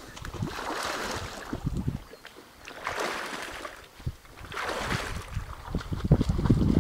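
Legs wading through shallow flooded marsh water, swishing and splashing in surges with each few strides. There are three surges, and the last, near the end, is the loudest.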